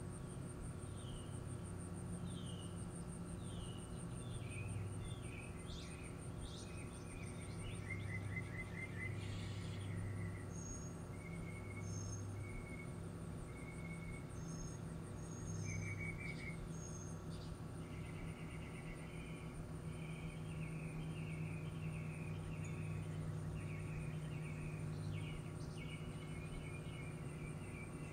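Backyard ambience: small birds chirping and trilling on and off, over a steady high-pitched insect trill and a low steady hum.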